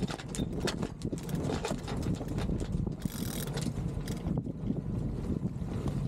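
Yacht winch ratcheting in a rapid run of clicks as a sail control line is hauled in, with a short rush of noise about three seconds in and a steady low wind-and-water rumble beneath.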